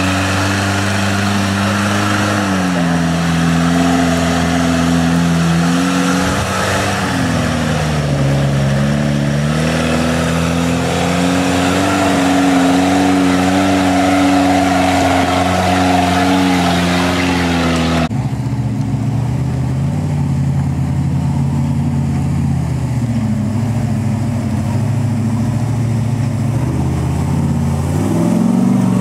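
Off-road vehicle engine running under load, its pitch rising and falling as it revs up and eases off. About two thirds of the way in, the sound switches abruptly to a steadier engine note, which climbs again near the end.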